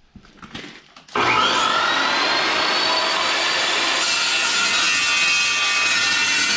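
Evolution metal-cutting chop saw switched on about a second in, its motor whining up to speed, then running steadily as the blade is pulled down to cut steel stock.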